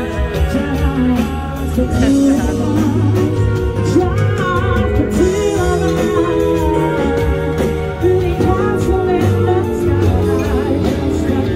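Live band playing a song: a woman singing over electric guitar, keyboard and cajon, with a steady beat.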